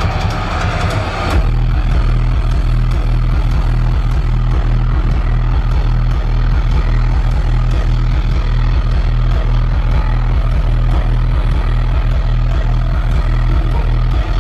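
Live dubstep bass music played loud through a festival sound system. A heavy, pulsing sub-bass comes in about a second in and dominates the rest of the sound.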